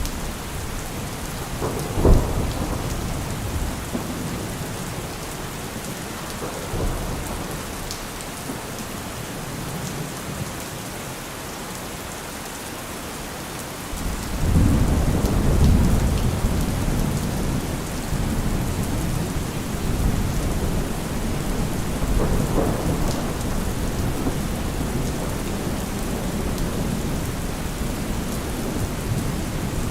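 Steady heavy rain with thunder: a sharp thunderclap about two seconds in, then a long, deep rolling rumble that swells about halfway through and slowly dies away.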